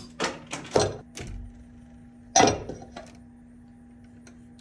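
A few sharp metallic clicks and clinks, the loudest about two and a half seconds in, as a solid copper wire is bent into place among the breakers of a steel electrical panel. A faint steady hum runs underneath.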